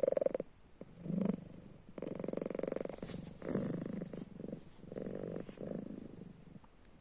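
Domestic cat snoring in its sleep: a pulsing rattle on each breath, about one breath a second.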